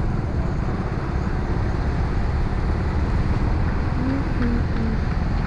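Steady road and wind rumble of a moving car.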